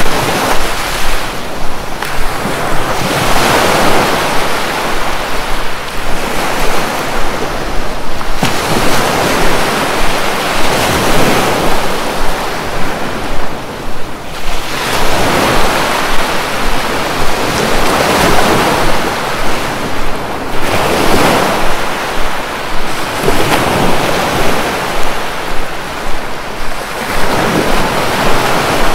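Sea surf breaking and washing up the beach, loud and continuous, swelling with each wave every few seconds.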